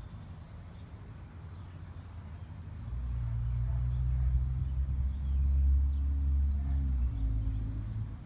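A low, steady engine hum that swells in about three seconds in and holds, with faint bird chirps above it.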